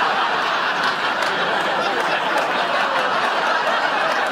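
A studio audience laughing in one long, steady wave.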